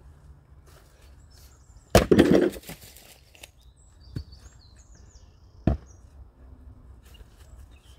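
Stihl AX 28 CS splitting axe striking a log about two seconds in, with a sharp crack and a brief crackle as the wood splits apart. Later come two lighter single wooden knocks as split pieces are handled and the next log is set on the chopping block.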